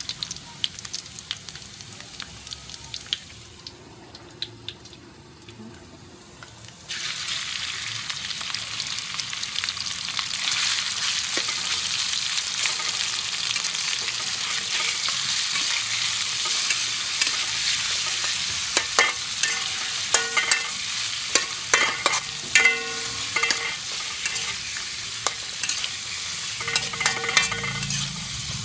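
Chopped garlic frying in oil in a wok, with a metal spatula scraping and tapping; about seven seconds in the sizzle jumps suddenly louder as raw pork pieces go into the hot oil. The pork then sizzles steadily while the spatula scrapes and clinks against the wok as it is stir-fried.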